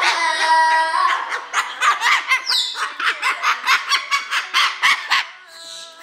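Umbrella cockatoo singing along in a rapid string of short, rhythmic 'ah' calls, about three to four a second, kept to the beat the way she was taught by hearing her own voice imitated to the beat.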